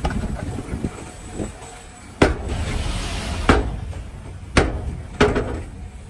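Bulldozer diesel engine running with a low rumble, broken by four sharp clanks spread about a second apart.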